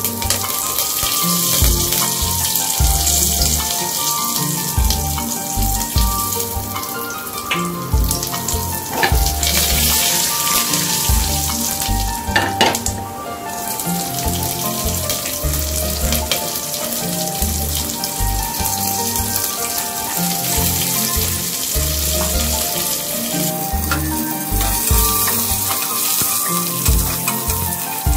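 Tempering sizzling in hot desi ghee in a pressure cooker: curry leaves, cumin seeds, green chillies and garlic frying with a steady hiss and crackle, over background music.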